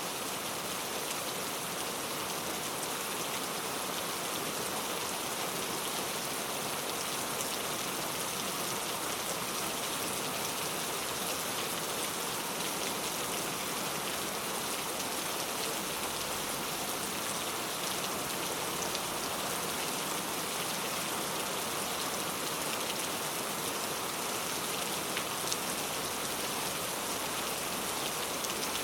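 Very heavy rain falling steadily on a surface: a dense, even hiss with scattered individual drop splashes.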